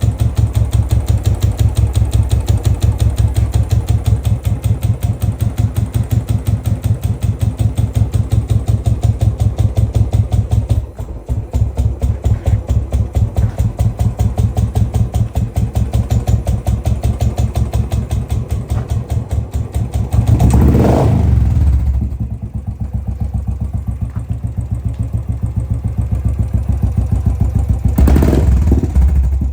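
Royal Enfield Classic 500's single-cylinder fuel-injected engine idling with its even thump of exhaust beats on a cold morning. The throttle is blipped twice, once about two-thirds of the way in and again near the end, each time rising and settling back to idle.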